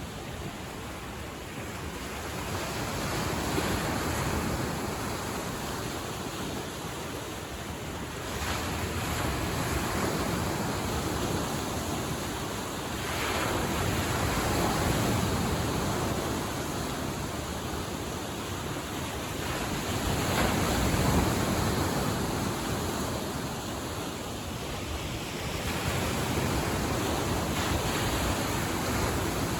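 Lake Michigan waves washing onto the shore, each wash swelling and falling back about every five to six seconds.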